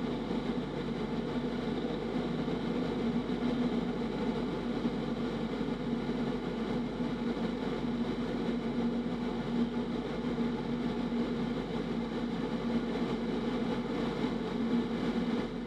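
Piper Super Cub's engine and slipstream heard from inside the cockpit as a steady drone during a steep descending spiral.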